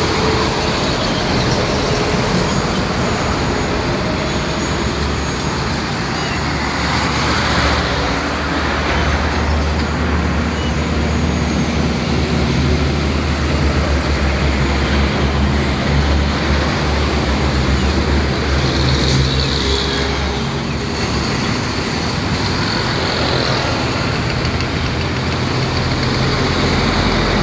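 Hino Profia concrete pump truck's diesel engine running steadily, with a heavier low rumble for a stretch in the middle, over steady traffic noise.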